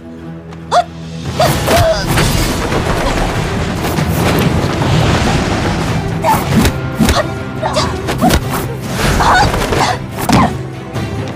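Dramatic action film score under a fistfight, cut through by several sharp punch and kick hit effects and a few short shouts.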